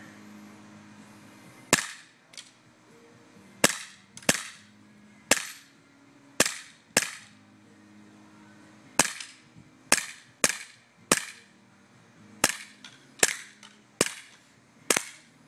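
CO2-powered Colt Defender BB pistol firing a string of about fourteen shots, irregularly spaced half a second to two seconds apart. Each is a sharp crack with a short ring after it.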